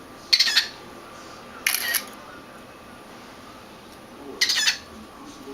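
Cockatiel giving three short, sharp, high-pitched chirps, spaced a second or more apart.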